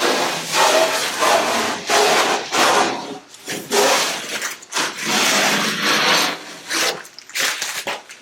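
Hand sanding or scraping of the fiberglass-and-epoxy repair on a cedar-strip kayak hull: rasping back-and-forth strokes about once a second, fading in the last second or so.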